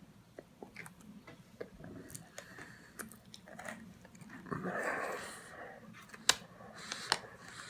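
Chewing and crunching on stale, hard chocolate-covered pretzels, with scattered sharp crunches and a louder rough, breathy noise about five seconds in.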